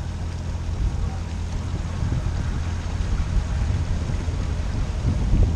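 Steady low rumble of a motor cruiser under way on a river, its engine and wash mixed with wind on the microphone, a little louder near the end.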